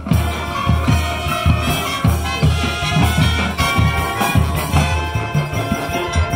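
High school marching band playing its field show: sustained brass chords over a steady low beat from the percussion.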